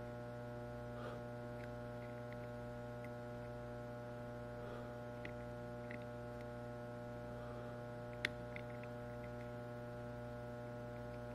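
Steady electrical mains hum, one unchanging buzzy tone with many overtones, with a few faint ticks and a single sharp click about eight seconds in.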